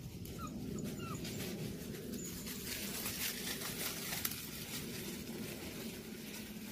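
Hunting-dog puppies scrambling through dry leaf litter, a dense crackling rustle of paws and bodies that thickens midway. A puppy whimpers twice in short rising squeaks about half a second and a second in.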